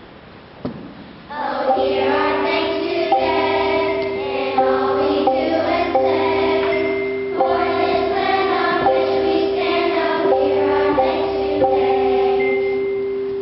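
Children's choir singing a song, beginning about a second and a half in.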